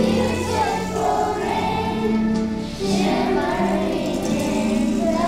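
Children's choir singing a song with musical accompaniment.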